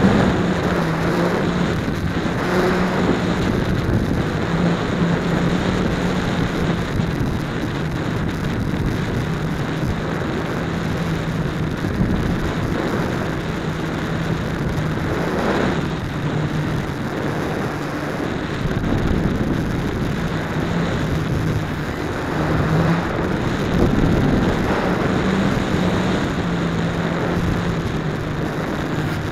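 The motor and propeller of a foam RC plane run steadily, heard through a camera mounted on its wing, under heavy wind rush. The motor's low drone steps up and down a little in pitch with throttle, and there is a brief louder swell about halfway through.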